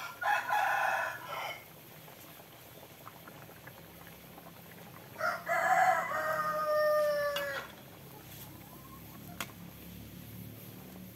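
A rooster crowing twice; the second crow is longer, and its pitch falls away at the end.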